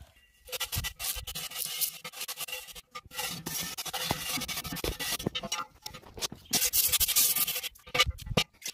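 Metal scourer scrubbing the inside of a cast iron pot: a rough, rapid scraping in uneven strokes, heaviest a little before the end. The scrub is lifting old oil off the iron before re-seasoning.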